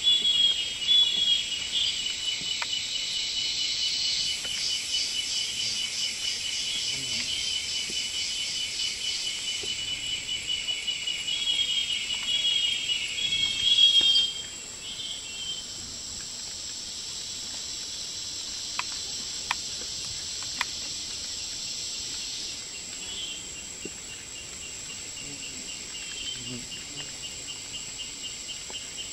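Rainforest insect chorus: high-pitched, steady buzzing and trilling, with a rapidly pulsing call in the first half. It turns suddenly quieter about halfway through, and a few faint clicks come a little later.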